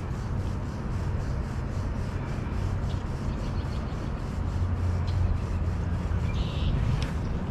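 Wind rumbling on the microphone, with a faint, steady ticking about three or four times a second.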